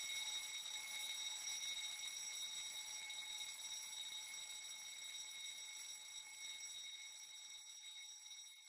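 A faint, steady, high-pitched electronic alarm tone that holds one pitch and slowly fades away over the last couple of seconds.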